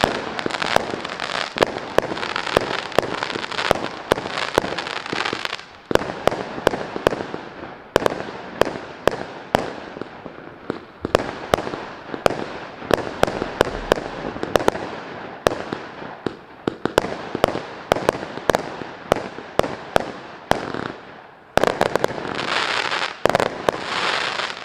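A 100-shot, 0.6-inch firework cake (Maxsem GP306) firing rapid volleys: sharp pops, several a second, over a crackling hiss of bursting stars. The crackle is densest at the start and again near the end, and the firing stops at the very end.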